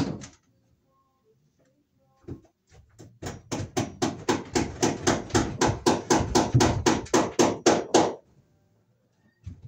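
A hammer driving cable staples into an overhead wooden joist. A few separate knocks come first, then a fast, even run of blows, about four to five a second for some five seconds, stopping abruptly.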